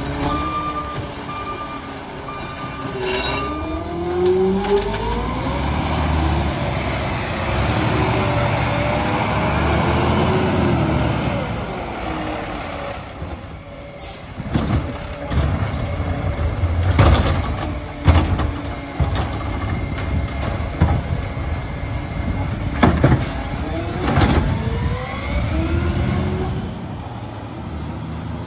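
Peterbilt 520 garbage truck with a McNeilus ZR automated side-loader body at work. The diesel revs up and down as the hydraulic arm runs, and a run of sharp knocks and bangs comes as a cart is lifted and emptied, with air-brake hisses. A backup alarm beeps in the first few seconds.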